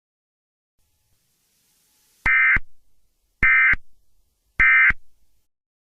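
Emergency Alert System end-of-message data signal: three short, harsh digital bursts about a second apart, each trailing off in a brief echo.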